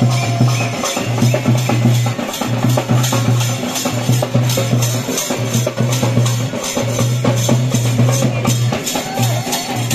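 Procession drumming and percussion music, a fast even beat of sharp strokes with a deep note that sounds in long stretches and breaks off between them.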